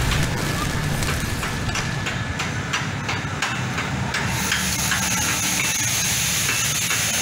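Stick (arc) welding on a concrete mixer's frame: the arc crackles and sizzles unevenly over a steady low hum, turning to a steadier hiss about four seconds in.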